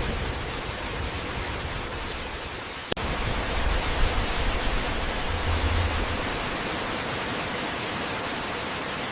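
Steady rushing of a waterfall: an even wash of water noise with no pitch, broken by a short click and dip about three seconds in.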